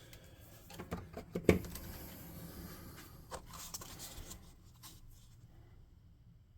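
Small clicks, taps and rustling of paint supplies being handled at a hobby table, with the sharpest tap about one and a half seconds in.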